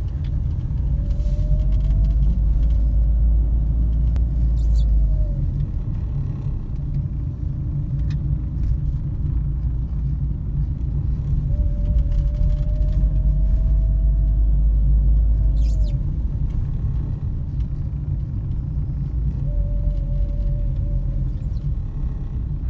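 Car engine and road rumble heard inside the cabin while driving slowly, with a faint tone that rises in pitch three times as the car gathers speed and then falls away.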